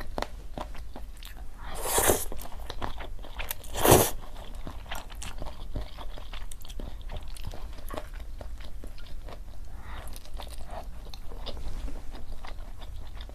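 A person eating: two louder crunchy bites about two and four seconds in, then steady chewing with many small clicks.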